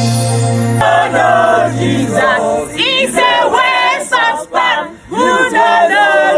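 Gospel music: a held keyboard chord ends about a second in, then voices sing sliding, wavering notes with little or no accompaniment, broken by short pauses.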